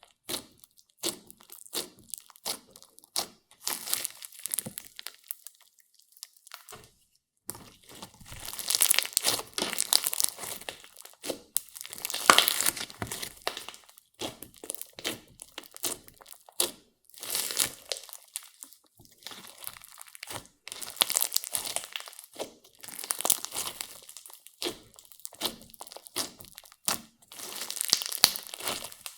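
Clear slime mixed with makeup and glitter, worked by hand, giving sticky crackles and clicks. Separate sharp clicks come first; from about a quarter of the way in the crackling turns dense, in long squishing stretches.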